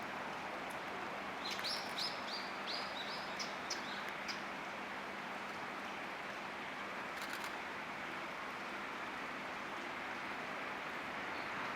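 Common kingfisher calling: a quick run of about seven short, high, piping notes about a second and a half in, then a few single notes, over a steady background hiss.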